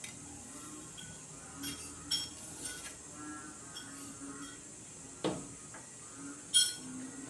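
A few short, sharp clinks and clicks over a faint steady background with a thin high whine; the loudest clink comes near the end.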